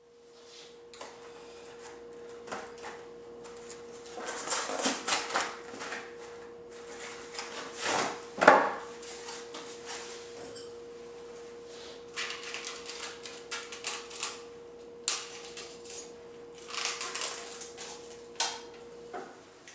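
Microwave oven running with a steady hum, under irregular knocks and clatter. The hum stops near the end.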